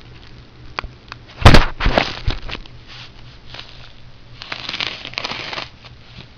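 Mail package being opened by hand: crinkling, crackling packaging with clicks, a loud sharp rip or knock about a second and a half in, and a longer stretch of rustling tearing near the end.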